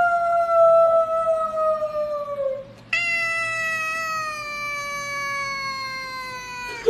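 Tabby cat meowing in two long, drawn-out calls, each sliding slowly down in pitch. The first fades out about two and a half seconds in, and the second starts just after and runs almost to the end.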